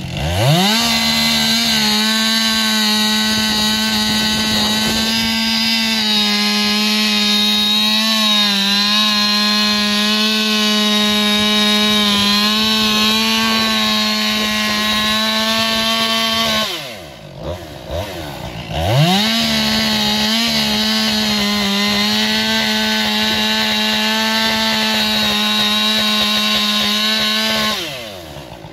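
Two-stroke chainsaw engine revved to full throttle and held there for about sixteen seconds, dropping to idle, then revved and held again for about nine seconds before dropping back near the end. At full throttle the pitch stays nearly flat with only slight dips: the engine is running against its rev limit with barely any load.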